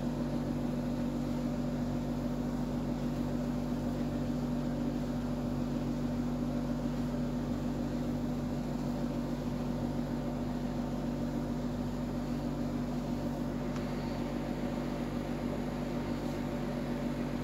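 Steady low electrical hum at a constant pitch with no change and no other events.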